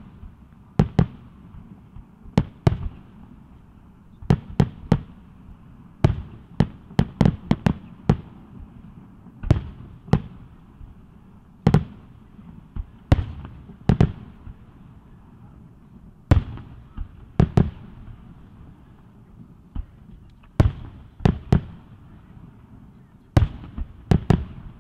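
Aerial firework shells bursting: a string of sharp booms at irregular intervals, often two or three in quick succession, each with a short echoing tail.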